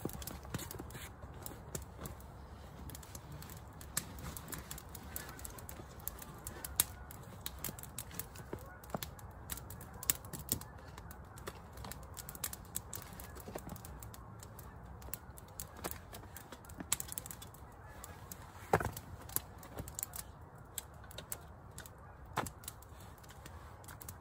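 Small wood campfire crackling, with irregular sharp pops and snaps throughout and one louder snap about three-quarters of the way through.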